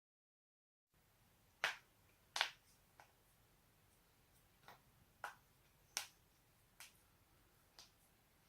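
A person's neck joints cracking: about eight sharp pops at uneven spacing starting about a second in, the first two the loudest.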